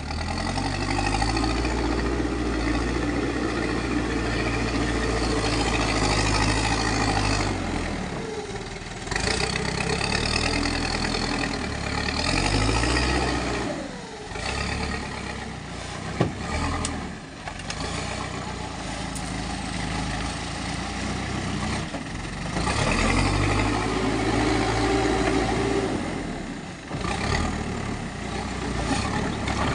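Backhoe loader's diesel engine working hard, its pitch and load rising and falling as the machine digs and swings soil onto a truck, with a sharp knock about 16 seconds in.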